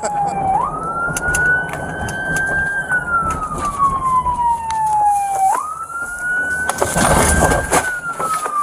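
Police car's electronic siren on a slow wail: a single tone climbs quickly, keeps rising slowly, then falls slowly, repeating about every five seconds. A short burst of loud noise comes about seven seconds in.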